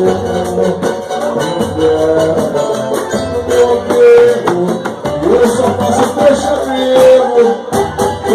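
Samba group playing a song, with a singing voice over steady hand percussion and a pulsing bass line.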